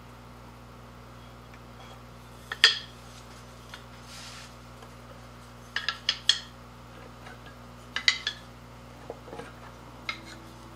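Padauk marimba keys clacking against each other as they are lifted off the frame's pins and stacked in the hand. There is one sharp knock about two and a half seconds in, a brief scrape, then clusters of quick clacks around six and eight seconds and another near the end.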